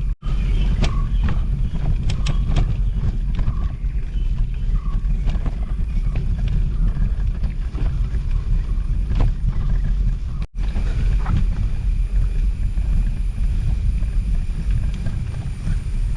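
Wind rumbling on the microphone of a camera riding along on a moving bicycle, with scattered light clicks and rattles from the bike on a rough path. The sound breaks off for an instant about ten seconds in.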